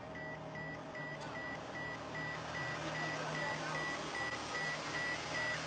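Car parking-sensor beeper sounding a rapid, even series of short high beeps, about four a second, the pace of an obstacle very close, over a low engine hum.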